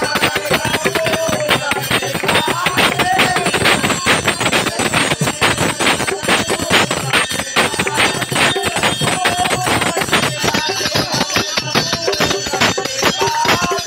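A devotional aarti sung by a group of voices, with a dense, rapid clanging of bells and cymbals.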